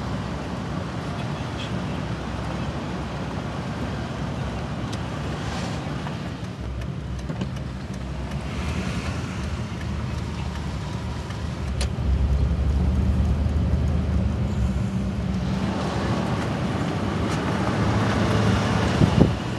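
Car driving along, its steady road and engine rumble heard from inside, growing heavier about twelve seconds in, with wind noise rising over the microphone near the end.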